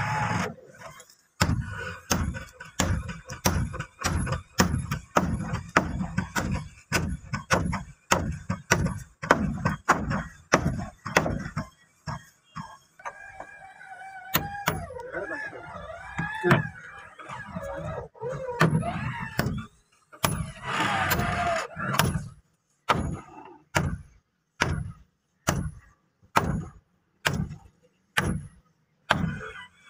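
Repeated hammer blows on a wooden boat hull, about two strikes a second, driving fastenings into the planking overhead. The blows thin out for a few seconds about halfway through.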